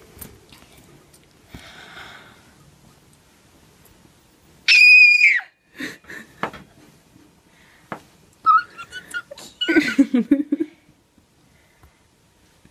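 A young girl's excited, wordless vocal sounds: one short, high, steady squeal about five seconds in, the loudest sound, then breathy gasps and whimpers around eight to ten seconds.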